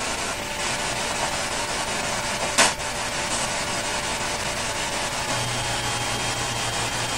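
Steady hiss with a single sharp click a little under three seconds in, then, a little over five seconds in, a steady low hum starts: a freezer's compressor motor kicking on, the cause of the device going off by itself.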